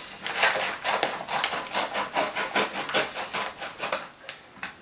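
Large scissors snipping along the edge of a plastic mailer bag, a quick run of crisp cutting crackles at about four or five a second that thins out near the end.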